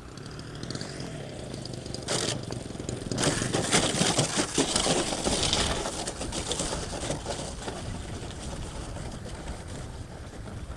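Radio-controlled model Cessna 152 flying past close by, its motor noise swelling about two seconds in, loudest for a few seconds, then fading away.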